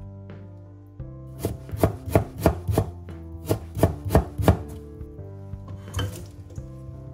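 Kitchen knife slicing burdock root into thin rounds on a wooden cutting board: a run of about ten quick chops over roughly three seconds, starting about a second and a half in, then one more near the end.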